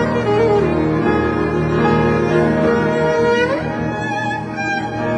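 Music played on bowed string instruments such as violin and cello. The notes are held and slide in pitch, with one rising slide about three and a half seconds in.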